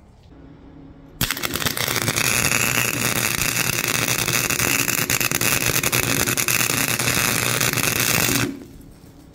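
Harbor Freight Flux 125 flux-core wire-feed welder arc crackling steadily, starting suddenly about a second in and stopping near the end, as it welds a nut onto a broken exhaust stud.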